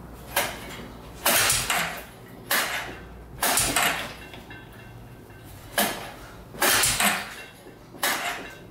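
A 1998 Arctic Cat 300 ATV's single-cylinder engine is cranked by its recoil pull starter seven times, each yank a short rasping pull of the rope as the engine turns over. It does not catch and run.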